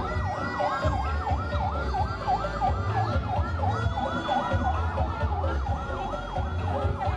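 A rapid yelping siren sweeping up and down about three times a second, over heavy bass from a truck-mounted horeg sound system.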